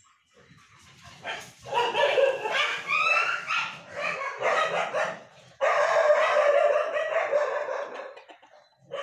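A dog barking repeatedly in two long bouts. The first starts about a second in, and the second begins a little past halfway.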